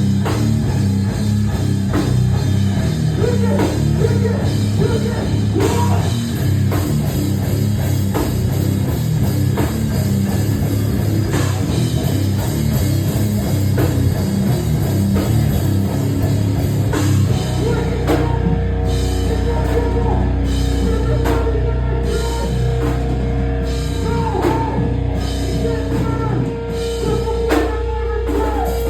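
Live hardcore band playing loud, heavy music on distorted guitars, bass and drum kit. About two-thirds of the way through, the riffing gives way to long held notes over continuing drum hits.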